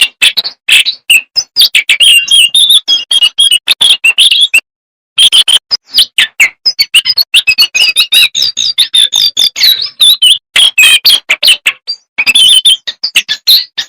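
A jongkangan songbird singing in full voice: a fast, loud run of varied chirps, trills and sharp whistled notes, with a brief pause about a third of the way in and another near the end.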